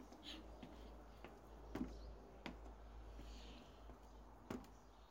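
Footfalls of sneakers stepping up onto and down from a plastic aerobic step platform: a handful of soft knocks at uneven intervals, the clearest about two seconds in and near the end.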